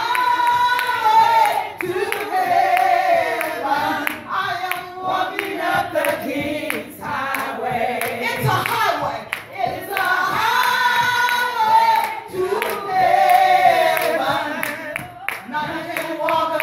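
A woman singing a gospel praise song into a microphone, with hands clapping along.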